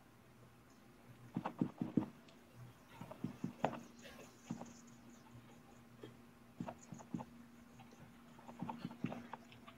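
Soft tapping of a paint-loaded sponge being dabbed onto a canvas, in short irregular clusters of taps. A faint steady low hum comes in about halfway through.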